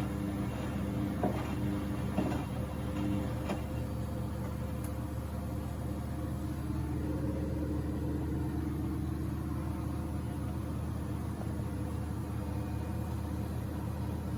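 Beko WMB71642W washing machine in its load-sensing and water-saturation stage at the start of a cycle: a steady motor hum as the drum turns, with a few knocks in the first few seconds and a tone that bends upward about seven seconds in.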